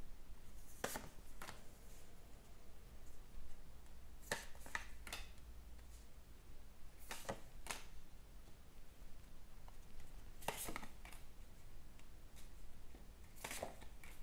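A deck of oracle cards shuffled by hand: short, crisp bursts of card noise every few seconds.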